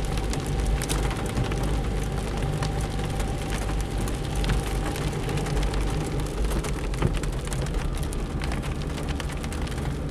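Car engine running while driving, heard from inside the cabin, with many raindrops ticking on the roof and windscreen.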